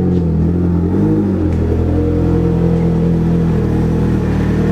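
A car engine running at low revs, with a couple of small rises and dips in pitch in the first second or so, then steady.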